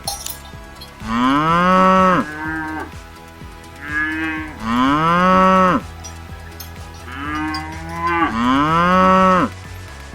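Cow mooing: three long, loud calls a few seconds apart, each rising then falling in pitch and paired with a shorter, weaker call, over a steady low hum.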